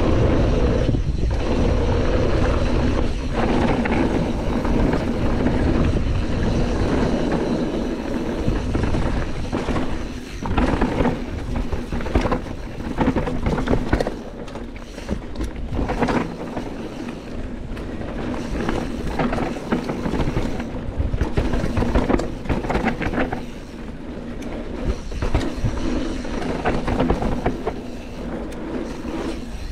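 Canyon Torque full-suspension mountain bike descending a dirt bike-park trail: knobby tyres rolling and skidding over the ground, the bike rattling and knocking over bumps, with wind buffeting the chest-mounted microphone. It is loudest over the first ten seconds or so, then quieter and more broken up.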